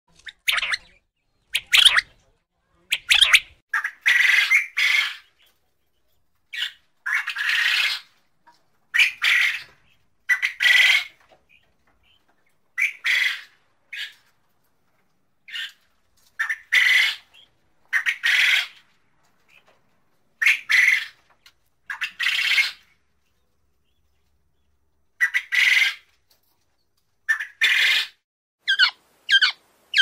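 Quail calling: short, harsh calls, some single and some in clusters of two or three, separated by silent gaps. Near the end a quicker run of shorter, clearer notes with sliding pitch begins.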